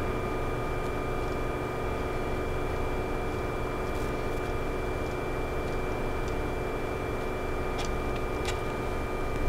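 Steady hum of a switched-on 3D printer, with a few fixed high tones over a low rumble. A few faint light clicks come about four seconds in and again near the end, as the extruder parts are handled.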